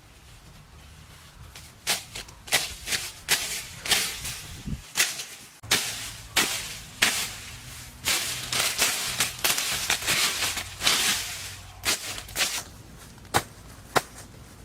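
An irregular series of sharp knocks and scrapes, several a second at their busiest, starting about a second and a half in and thinning out to a few spaced knocks near the end.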